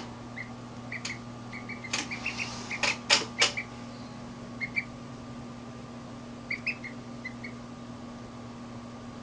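Duckling peeping: short, high chirps in small clusters, sometimes two or three in quick succession. A few sharp clicks come between about one and three and a half seconds in, and a steady low hum runs underneath.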